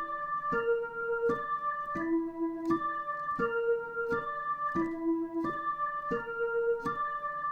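Dutch ambulance siren: an electronic siren stepping through a repeating sequence of held tones that outline a broken chord (arpeggio) rather than the usual two-tone hi-lo. Each tone lasts about two-thirds of a second, with a sharp click at each change, and the pattern comes round again about every three seconds without a break.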